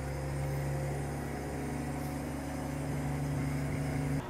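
Crane truck's engine idling with a steady low hum, cutting off suddenly near the end.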